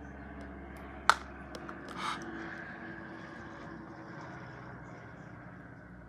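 Close handling noise from fingers working small beads and a ring near the microphone: one sharp click about a second in, a few fainter ticks, and a short rustle about two seconds in, over a steady low background hum.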